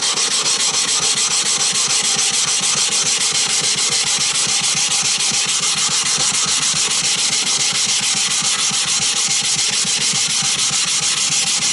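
Coarse 120-grit flattening stone scrubbed back and forth against a wet water stone with Kongo-sha abrasive powder, a continuous gritty grinding rasp in quick, even strokes. It stops abruptly at the end.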